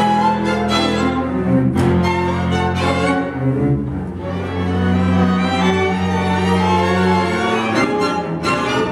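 A chamber string orchestra (violins, cello and double bass) playing a tango arrangement, with long held low notes under the violin melody and a change of harmony near the end.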